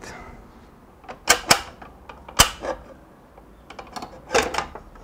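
A new 120-tooth carbide blade being fitted onto a DeWalt miter saw's arbor: a few sharp clicks and clinks. Three spaced-out knocks come in the first half, and a quicker run of small clicks comes near the end.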